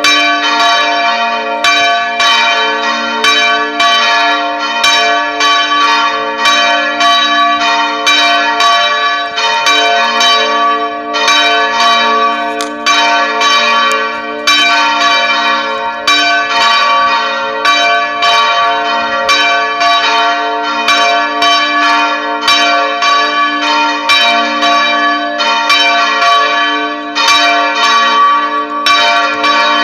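Church tower bells ringing in a fast, steady run of strokes, a few a second, with short breaks every few seconds. The tones of each stroke hang on and overlap the next.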